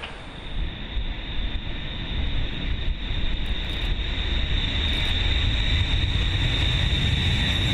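B-52 bomber's jet engines running: a steady high whine over a deep rumble that grows louder over the first few seconds and then holds.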